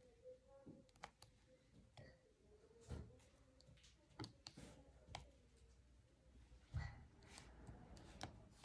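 Faint, irregular light clicks and taps of handwork on a small craft canvas, with a couple of soft thumps, the loudest about seven seconds in.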